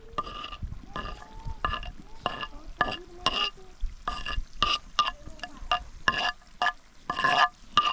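Metal spoon stirring in a metal vessel, knocking against its side about twice a second, each knock ringing briefly with the same metallic tone.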